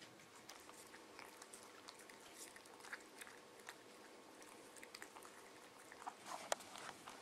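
Two cats eating wet cat food from glass bowls: faint, irregular chewing and licking clicks, with a few louder clicks near the end.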